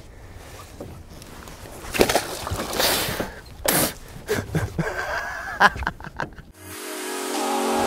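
Several irregular loud bursts of noise in the boat, with a short vocal sound among them, then background music fading in over the last second or so.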